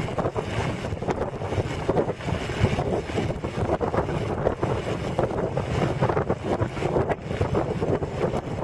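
Wind buffeting a compact camera's built-in microphone while it moves along a road, a continuous rough noise that swells and dips unevenly.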